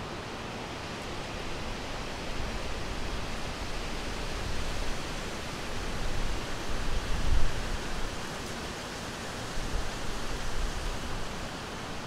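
Steady rushing wind noise with low, gusty surges in the rumble, the strongest about seven seconds in.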